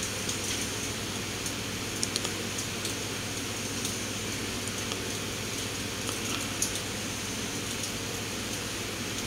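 Steady background hum, with faint rustles and a few light taps as organza fabric is handled and smoothed flat on a table.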